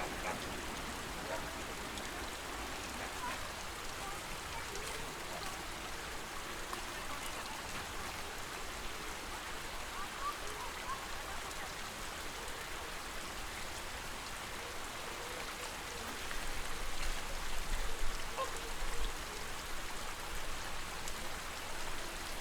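Shallow lake water splashing and trickling in a steady wash around wading flamingos, with a low rumble for a few seconds near the end.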